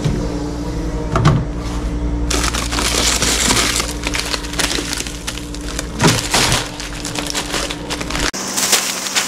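The sliding glass lid of a shop chest freezer knocks open, then a plastic bag of ice cubes is lifted out, crinkling, with the ice crunching and clinking inside. A steady freezer hum runs underneath until near the end.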